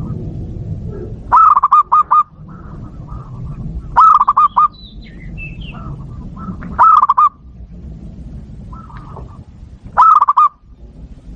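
Bangkok-strain zebra doves (perkutut) cooing: four loud phrases of several quick rolling notes, one about every three seconds, with softer cooing from other doves between them.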